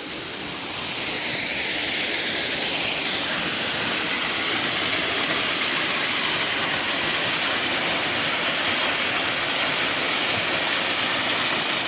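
Waterfall pouring into a pool: a steady rushing hiss that grows a little louder about a second in.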